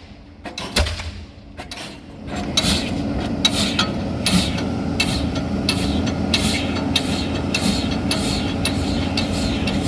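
Diesel pile hammer driving a concrete pile: after a couple of quieter seconds with a few knocks, sharp blows start about two seconds in and repeat evenly, roughly twice a second, over the steady running of the rig's engine.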